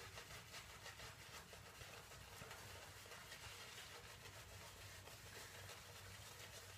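Near silence, with faint soft swishing from a shaving brush being worked in circles to spread lather over the face.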